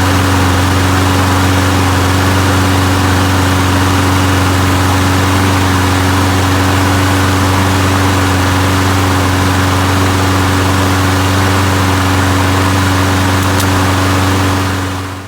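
Small engine of a 22-inch Recycler walk-behind lawn mower, running on its replacement carburetor, held at a steady speed and then stopping near the end.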